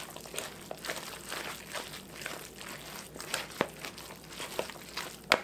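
A stainless-steel wire masher working through thick, creamy shredded-chicken filling in a mixing bowl: irregular squishing and scraping, with scattered clicks of the metal against the bowl and a sharper click near the end.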